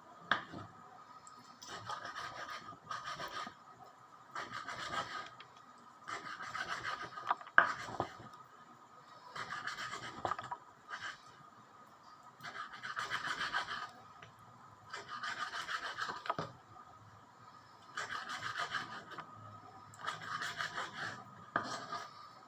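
Repeated scraping strokes, about ten in all, each lasting roughly a second with short pauses between them, as of a blade or utensil being drawn over a surface while preparing food.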